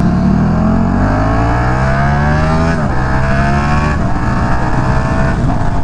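Motorcycle engine accelerating hard, its pitch climbing, with two upshifts about three and four seconds in, then pulling more steadily in the higher gear, over a steady rush of wind noise.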